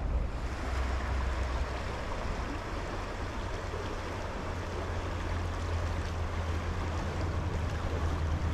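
Mountain trout stream flowing, a steady rushing of water.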